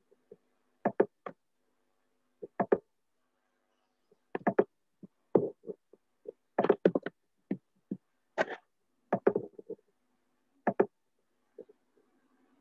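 Computer mouse clicks, often in quick pairs, coming at irregular intervals over a faint steady hum.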